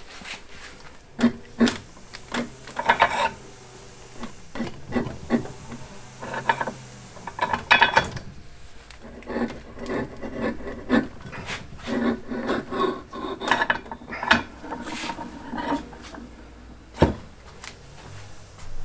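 A keyway broach being forced down through a steel flywheel hub by a hand press. It makes a string of irregular rasping scrapes and sharp clicks.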